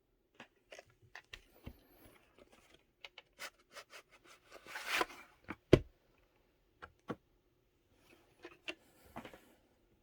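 A VHS cassette and its plastic case being handled: a string of small clicks and taps, a rustle about five seconds in, and one sharp knock just before six seconds, the loudest sound.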